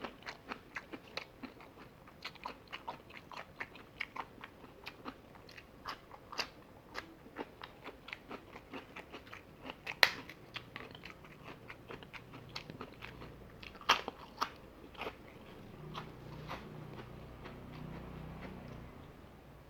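Close-miked mouth chewing and biting crunchy fried chicken: rapid irregular crunches and wet clicks, with a couple of louder snaps. A low hum builds near the end.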